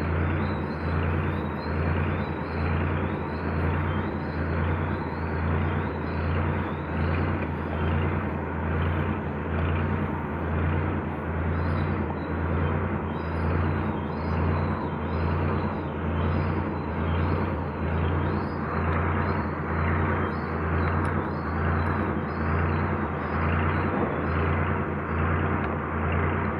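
Steady low machine drone that throbs about twice a second, with a hissing noise over it.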